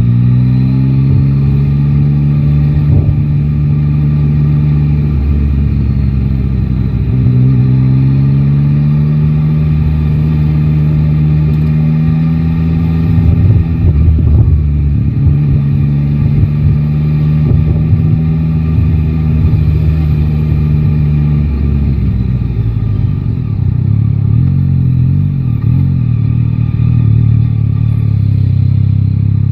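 Yamaha Tracer 9 GT's three-cylinder engine under way, heard from the rider's seat. It picks up speed at the start, with a gear change and a second pull soon after, then holds a steady cruise until the revs drop to a lower steady note about three-quarters of the way through. Wind rumbles on the microphone throughout.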